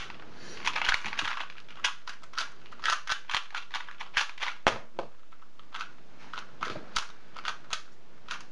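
Plastic 2x2 speed cubes being turned fast by hand: an irregular run of sharp clicks and clacks as the layers snap round, densest about a second in.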